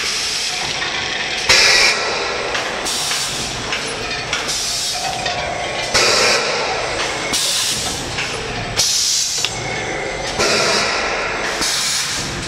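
Egg-tray pulp moulding machine running, with a burst of air hiss about every one and a half seconds as its pneumatic moulds cycle, over a steady mechanical clatter.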